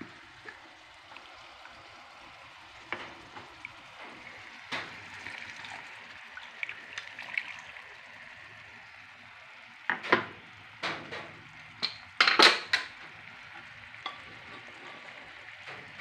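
Roasted ground coconut masala sizzling and bubbling in a frying pan while a spoon stirs it. Sharp knocks and scrapes of the spoon against the pan come in a cluster about ten to thirteen seconds in, the loudest near the end of that cluster.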